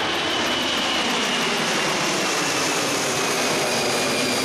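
Boeing C-17 Globemaster III's four turbofan jet engines at high power as it climbs away, a steady roar with a high whine that slowly falls in pitch.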